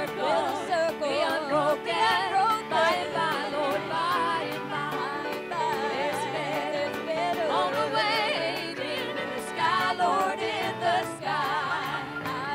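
Live country music: a woman sings lead with a wide vibrato, with women's backing voices and a band playing along.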